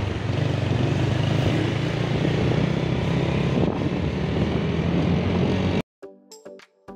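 Motorcycle taxi's engine running steadily with wind rush, heard from on board while riding. About six seconds in it cuts off suddenly and quiet music of separate notes begins.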